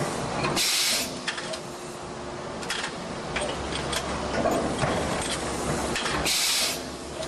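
JKP-650 cold forging machine running with automated part handling: a steady mechanical hum with scattered clicks and knocks. Two short hisses of air come about five and a half seconds apart, one per machine cycle.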